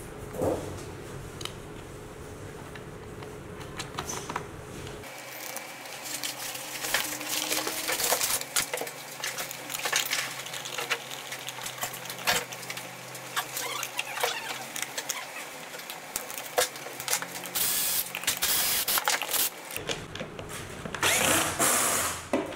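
Metal parts and bolts clicking and knocking as an electric skateboard's rear truck is assembled, with short runs of a cordless drill-driver, the longest near the end.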